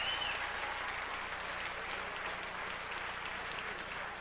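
Audience applauding steadily, with a long whistle from the crowd that cuts off just after the start.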